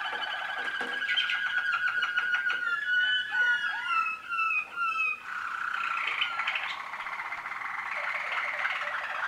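Young Waterslager canaries singing: fast rolling trills at a steady pitch, broken in the middle by a run of separate falling whistled notes, then rolling trills again.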